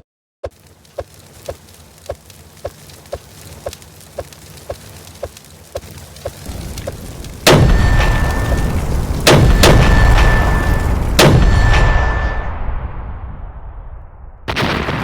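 Fireworks: a regular ticking about twice a second over a growing rumble, then three loud firework bangs about two seconds apart, each followed by a short whistling tone, with the sound dying away before loud bangs start again at the very end.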